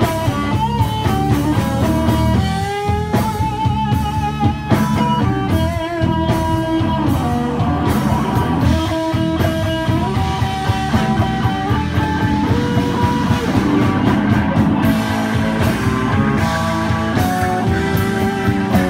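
Live blues band playing through a PA, led by an electric guitar solo of bending, sliding notes over a drum kit.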